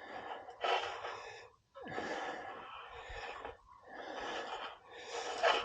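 A man breathing hard and noisily from physical effort, a run of long heavy breaths.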